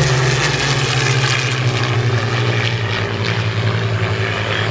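A Supermarine Spitfire and a Hawker Hurricane flying past together, their V12 piston engines droning steadily, the pitch sinking slowly as they pass.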